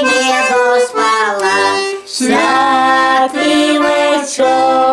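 Button accordion playing while a woman sings a Ukrainian koliadka (Christmas carol) in a folk style, with a short break between phrases about two seconds in.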